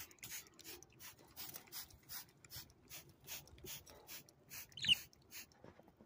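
A pet parrot gives one short chirp near the end, rising in pitch. Under it, a soft hiss repeats about three times a second.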